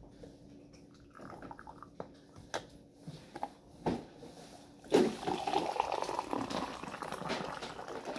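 Tea dripping from a mesh infuser lifted out of a glass tea pot, with a few light clinks. About five seconds in, a steady stream of hot tea starts pouring from the pot into a ceramic mug; the start of the pour is the loudest moment.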